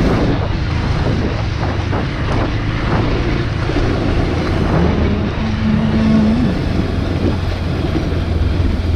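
Bajaj Pulsar 180's single-cylinder engine running steadily at low speed in a low gear, with road and wind noise on the microphone. About five seconds in, a note rises briefly and holds for a second or so.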